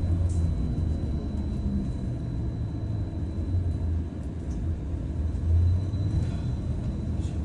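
Cabin noise on the upper deck of a Wright StreetDeck Electroliner battery-electric double-decker bus on the move: a steady low rumble from the road and running gear, with a faint steady high whine.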